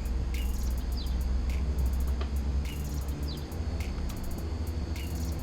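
Small birds chirping in a repeating pattern, with rapid insect-like clicking, over a steady low hum.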